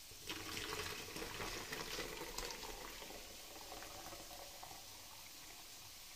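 Milky spiced tea poured from an aluminium pot through a cloth-lined plastic strainer into a plastic jug: a splashing pour that starts about a quarter second in and tapers off over the next few seconds.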